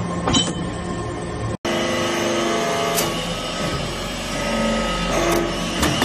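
Hydraulic metal-chip briquetting press at work: a steady drone from its hydraulic unit, with held tones that shift in pitch and an occasional metallic knock. There are a few sharp clinks in the first second and a half, then the sound cuts out for a moment and the drone comes back.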